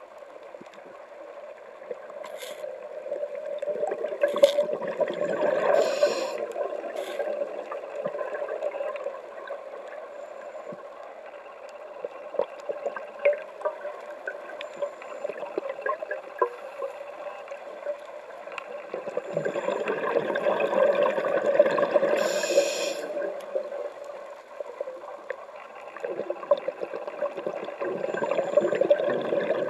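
Scuba diver's regulator breathing heard underwater: exhaled bubbles rise in three long bubbling swells, with quieter stretches between them.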